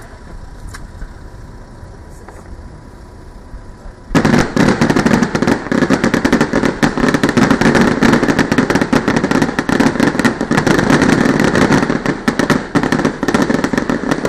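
Fireworks display: a few faint pops at first, then about four seconds in a loud, dense run of rapid crackling and popping sets in and keeps going.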